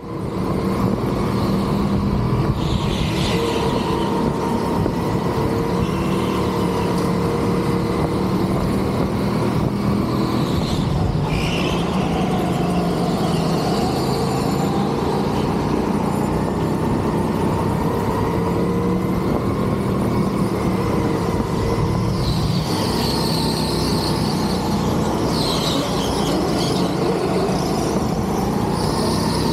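Electric go-kart driven flat out around a lap, its motor whining and rising and falling in pitch with speed over steady wind and rolling noise. Tyres squeal through corners a few seconds in, around eleven seconds in, and again through a longer stretch near the end.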